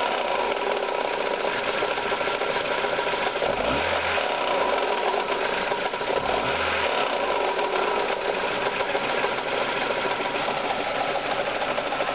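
Ford Zetec four-cylinder engine running with a steady, rapid knocking from inside the engine. The knock is not just a start-up noise: it carries on even at operating temperature.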